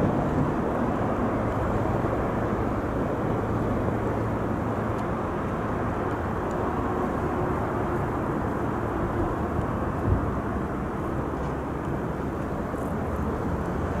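Steady low rushing noise of seaside wind on an unshielded camcorder microphone, with a small thump about ten seconds in.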